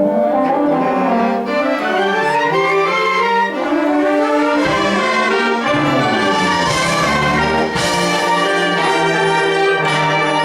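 Youth concert band playing a holiday piece, brass to the fore in loud, held chords that shift from note to note.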